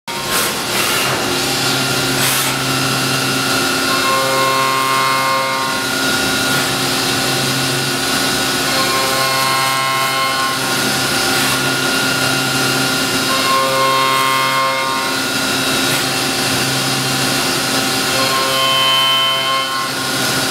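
Horizontal CNC machining center running and cutting: a steady mechanical cutting noise, with a whine that comes in for a second or two about every four to five seconds as the machine repeats its moves.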